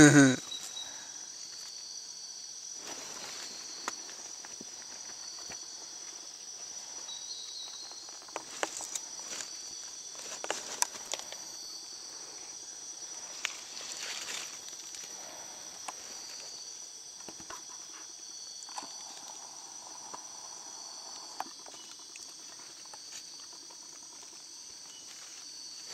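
Steady high-pitched night insect chorus, with scattered rustles and clicks of leaf litter and handling. A brief human vocal sound comes right at the start.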